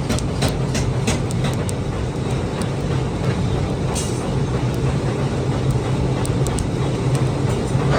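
Steady low machine drone in a blacksmith's workshop, with sharp metal knocks about three a second that thin out after about two seconds to a few scattered ones.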